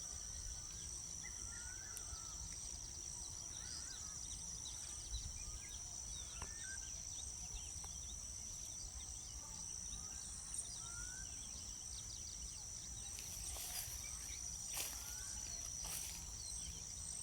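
Outdoor ambience of a steady, high-pitched insect drone with many faint, short bird chirps scattered through it. A few brief rustling noises come near the end.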